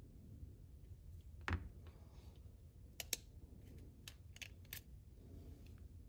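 Faint, scattered metallic clicks and ticks as a security Torx screwdriver works the screws out of a Leatherman Wave multitool. The sharpest click comes about one and a half seconds in, with a few more near three seconds and between four and five seconds.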